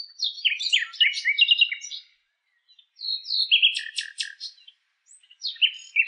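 Nightingale singing: quick high chirps, whistles and rapid trills in three phrases separated by short pauses.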